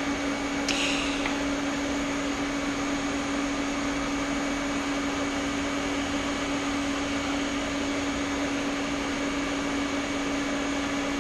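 TIG welder with its water cooler running, a steady loud hum with one strong held tone. A short click and brief hiss come about a second in.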